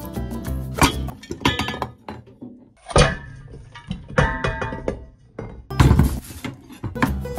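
Background music, with three sharp knocks spread through it.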